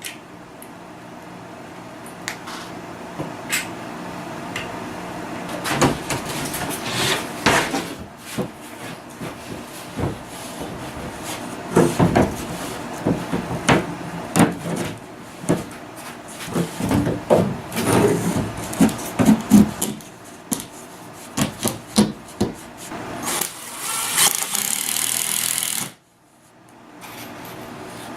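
Plywood being handled and fitted into place: irregular wooden knocks and thumps with scraping and rubbing between them. Near the end a denser hiss of scraping cuts off suddenly.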